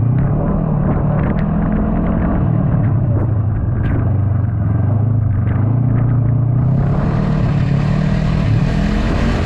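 Yamaha snowmobile engine running under way, its pitch drifting up and down a little with the throttle. About two-thirds of the way in, a rushing hiss joins it.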